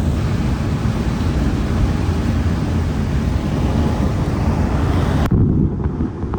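Steady road and tyre noise of a car driving on a wet highway, with a hiss over a heavy low drone. About five seconds in the hiss cuts off suddenly, leaving the low drone, which starts to fade.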